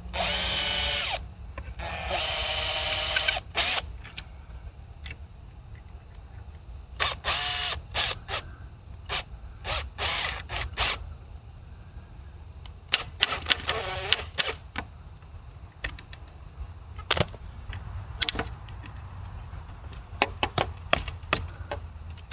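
A cordless drill-driver's motor whines in about five short bursts of a second or so each. Sharp clicks and knocks from handling the metal parts come in between.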